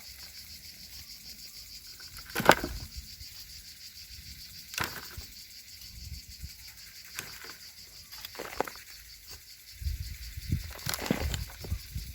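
Buckets of manure being handled: scattered knocks, swishes and scrapes, loudest about two and a half seconds in, with heavier rumbling handling near the end, over a steady high-pitched pulsing in the background.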